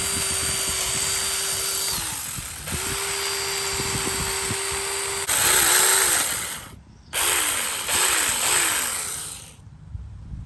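Tomyvic 6-inch battery-powered mini chainsaw running with a steady motor whine, easing off briefly about two seconds in. About halfway through it cuts into a wooden block and its pitch sags again and again under load. It stops for a moment, restarts and bogs down several more times, then cuts off near the end.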